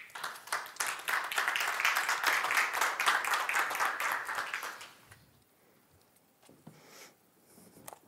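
Audience applauding, starting suddenly and dying away after about five seconds.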